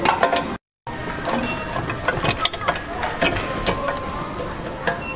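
Lollipop vending machine's mechanism working, with irregular clicking and rattling as it moves the lollipops through the glass case toward the out chute. The sound drops out briefly just under a second in.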